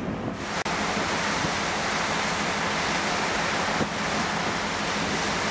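Steady rushing of wind and churned water past the moving ferry, heard from the open deck. It cuts in abruptly about a third of a second in.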